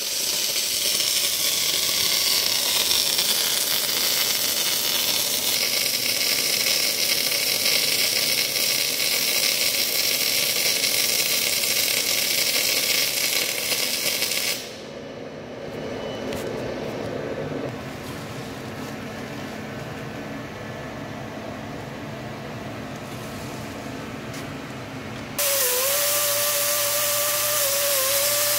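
MIG welding arc laying a bead on a steel hydraulic cylinder barrel and flange, a steady crackling hiss. About halfway through the arc sound stops abruptly and a quieter, duller noise follows; near the end a loud noise with a steady, slightly wavering whining tone starts.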